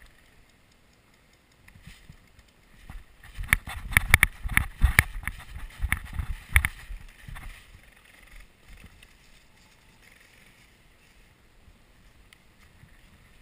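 Running footsteps on dry fallen leaves, with gear rattling, in an irregular run of knocks and thumps from about three seconds in that dies away a few seconds later.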